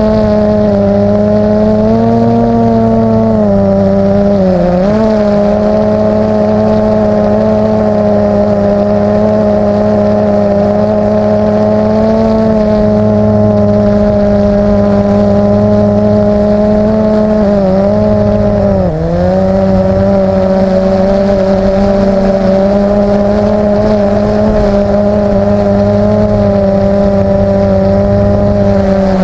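Multirotor drone's electric motors and propellers humming steadily close up, one pitched drone with overtones. The pitch dips briefly about four seconds in and twice more around two-thirds of the way through, as the throttle changes.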